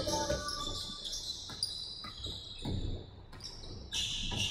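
Basketball game play on a hardwood gym floor: a string of ball bounces and footfalls about every half second, with high sneaker squeaks at the start and again near the end, in an echoing hall.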